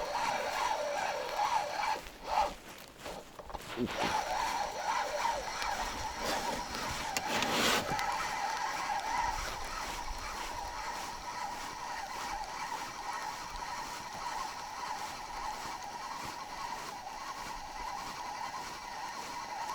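Small boat outboard motor running steadily at low trolling speed, heard as a constant mechanical whine. Two short knocks, about 2 and 7.5 seconds in, stand out above it.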